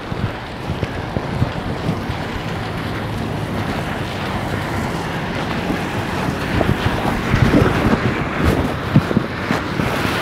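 Storm wind and rain making a steady rushing noise, with gusts buffeting the microphone. It gets louder and more crackly in the last few seconds.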